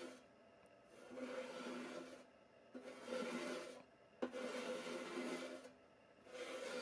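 Slow hand-abrasion strokes on the old toy truck's metal, rubbing or sanding. Four strokes, each about a second long, with short pauses between them.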